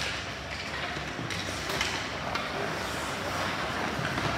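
Ice hockey play at a faceoff: a sharp clack of sticks on the puck as the puck is dropped, then skate blades scraping the ice, with a few more stick-on-puck clacks.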